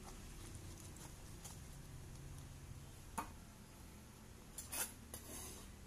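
Plastic kitchenware being handled over a low steady hum: a single click about three seconds in, then a short clatter near the end.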